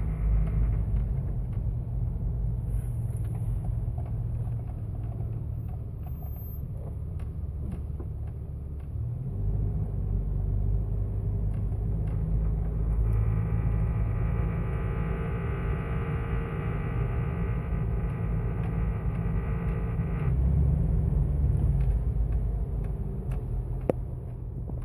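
Jeep Wrangler TJ's 4.0 straight-six running at low rpm, a steady low rumble with a buzzing vibration. The owner hears this buzz only at low rpm in Drive and Reverse, and it goes away at higher rpm. A higher-pitched steady tone joins about halfway through and stops some seconds later.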